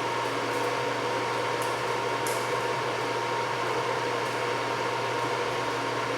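Steady whirring and humming from the amplifier-dyno test bench during a dyno run, with a faint high steady tone over it. The noise does not change in level.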